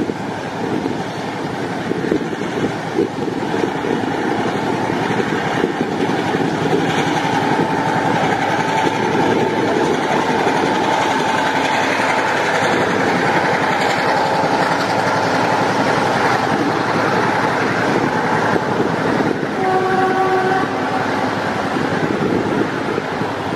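Diesel locomotive hauling a passenger train, its engine running and its wheels clattering on the track as a steady loud rumble. A short horn blast sounds near the end.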